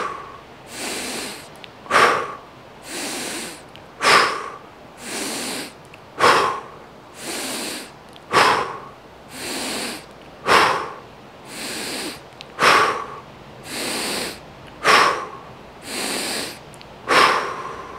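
A person doing rhythmic deep breathing, about one breath every two seconds. Each cycle is a quick, forceful exhale through the mouth followed by a longer, softer inhale through the nose, with nine exhales in all. The last one comes near the end, emptying the lungs for a breath hold.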